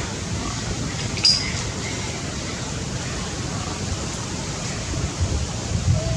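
Steady rushing, mostly low, like wind buffeting the microphone outdoors, with one short high chirp about a second in. Right at the end a macaque's call begins.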